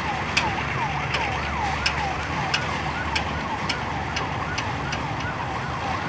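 Passenger train pulling away over the track, with a steady low rumble and sharp clicks every half second or so. Over this comes a high, falling, whistle-like tone that repeats two to three times a second.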